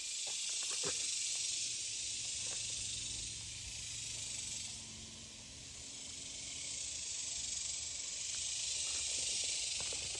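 Steady high-pitched hiss of an insect chorus in a summer pasture, easing a little midway and swelling again, with a few faint footsteps in grass.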